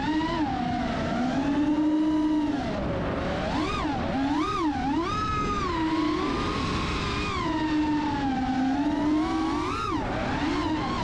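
FPV racing quadcopter's electric motors whining, the pitch swooping up and down constantly and quickly as the throttle changes.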